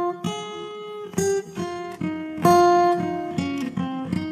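Background music: an acoustic guitar plucking a slow melody of single ringing notes, the notes coming quicker near the end.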